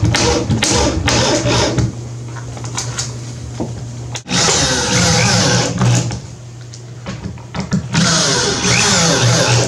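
Power drill driving wood screws into pine 2x6 framing, running in three bursts of under two seconds each: near the start, around the middle and near the end.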